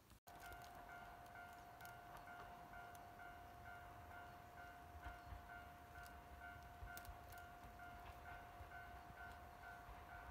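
Faint railway level-crossing warning bell ringing in a steady pattern of about two strokes a second, over a low rumble from a diesel train approaching in the distance.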